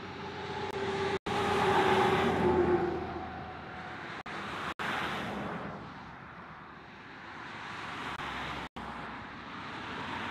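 Road traffic: several cars passing one after another, the sound swelling and fading each time, the loudest pass about two seconds in with a tyre and engine hum. The sound cuts out for an instant four times, gaps in a streamed recording.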